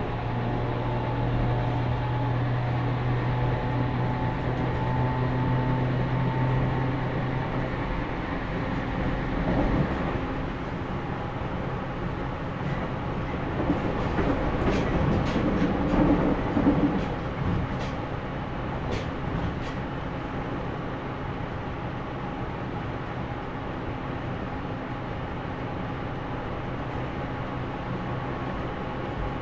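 JR Kyushu 813 series electric train with Toshiba GTO-VVVF control, running on the line and heard from inside the car. A steady low hum with a few steady higher tones stops about eight seconds in. Around the middle the rumble grows louder and rougher, with a few sharp clicks, then settles back to an even running noise.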